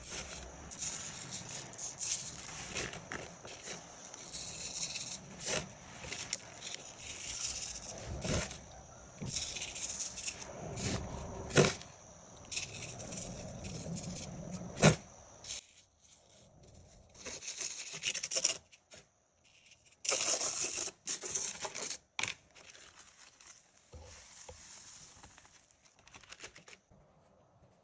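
Fine coloured sand being spooned and sprinkled onto a sand-art card with a small plastic spoon: a dry hissing and scraping in irregular bursts, with a few sharp spoon taps. The bursts thin out later on as the card is handled.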